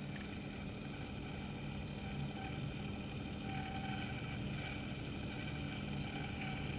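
Steady low electric-motor hum from an orbital welding head's rotor being driven forward around the tube.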